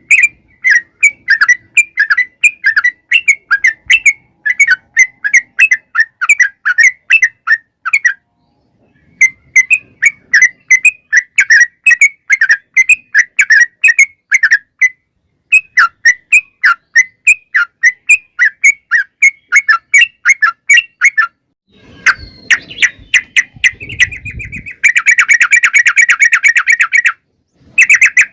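Yellow-vented bulbul (trucukan) calling in long fast series of sharp chirps, about four a second, in runs broken by short pauses. Near the end a low rumble comes in, along with a faster, buzzy chatter.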